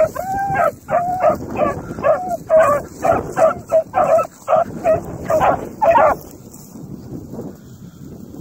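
Beagle-type hound baying in a string of short, repeated calls, about two a second, that stop about six seconds in.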